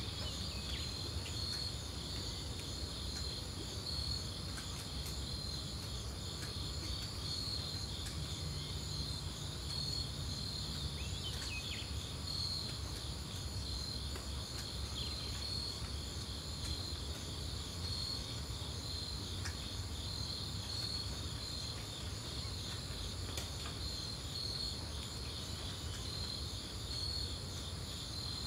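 Outdoor chorus of insects: a steady, high, rapidly pulsing trill with a thinner continuous buzz above it, over a low background rumble.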